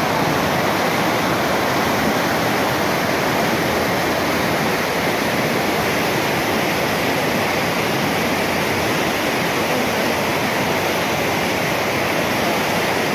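A river in flood after heavy rain: fast, muddy floodwater churning and rushing in a steady, loud, unbroken rush.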